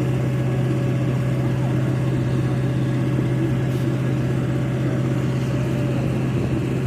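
A steady low hum with faint voices in the background.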